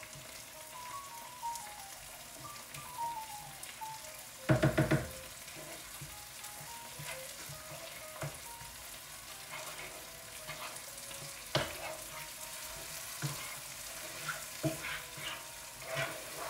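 Vegetables and coconut cream sizzling in a nonstick frying pan while a wooden spoon stirs and scrapes, with scattered clicks of the spoon against the pan. A brief cluster of louder knocks comes about four and a half seconds in.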